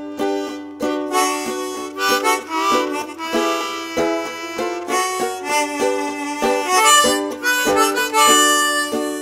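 Instrumental background music: a sustained reedy melody over plucked-string accompaniment, with a steady run of changing notes.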